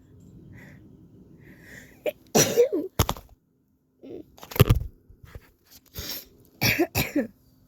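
A person sneezing several times in a row: loud sharp bursts about two seconds in, near the middle, and a quick double near the end.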